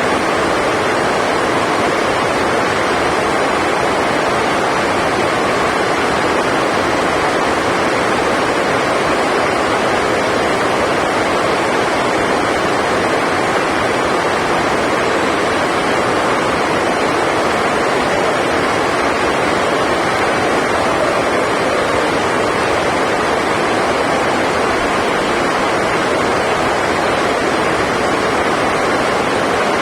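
Heavy rain: a loud, steady, unbroken hiss that drowns out all other sound.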